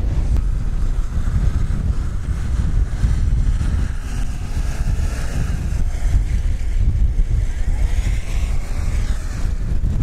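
Strong wind buffeting the microphone in a blizzard, with a Lada Niva's engine revving underneath, its note wavering as it ploughs through deep snow.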